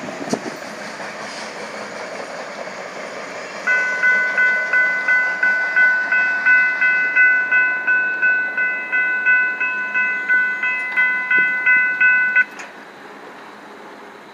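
A short freight train's cars rolling past and fading. Then, nearly four seconds in, a railroad crossing bell starts ringing in quick, even strokes, about two and a half a second, and stops abruptly some nine seconds later as the gate arms go up.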